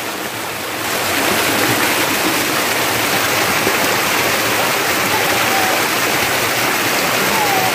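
Steady rush of running water, cutting off abruptly near the end.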